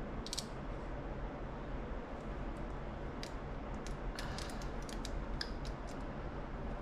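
Scattered light clicks and ticks from a hand-operated RC driveshaft straightening tool as a bent driveshaft is pressed and turned in it, with a cluster of clicks about four to five and a half seconds in, over a steady low background hum.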